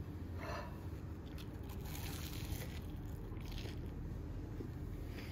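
A crunchy bite into a breaded, deep-fried mac and cheese piece, followed by chewing, over a steady low hum.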